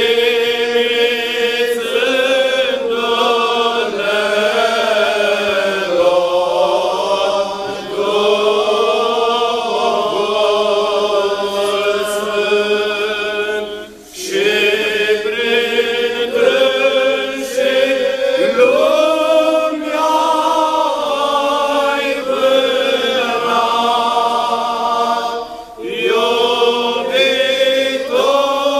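A group of voices singing Orthodox liturgical chant together in long, held phrases, with short breaks for breath about 14 and 26 seconds in.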